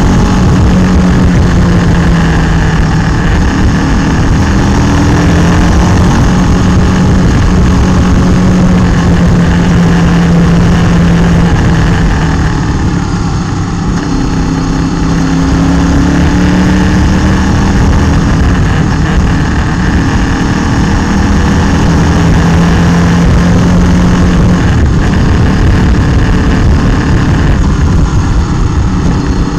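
Motorcycle engine running steadily at cruising speed, heard from a camera mounted on the bike, with wind rushing over the microphone. About halfway through, the engine note drops as the throttle eases off, then climbs again.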